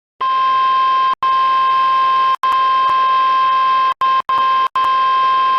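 NOAA Weather Radio 1050 Hz warning alert tone: one loud, steady beep over radio hiss, cut by several brief dropouts. It signals that a warning broadcast, here a flash flood warning, is about to be read.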